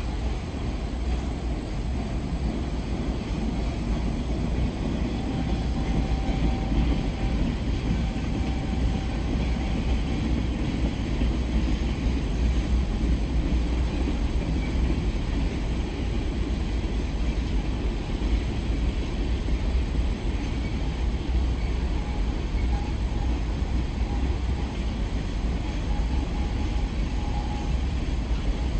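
Mixed freight train's cars rolling past steadily, a continuous low rumble of wheels on rail. A faint thin squeal comes and goes twice.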